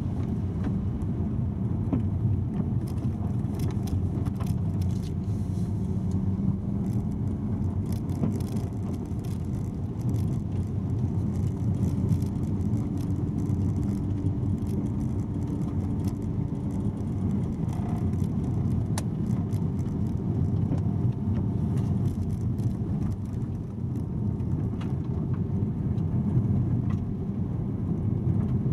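Car driving on a gravel road: a steady low rumble of tyres and engine, with scattered small clicks and ticks throughout.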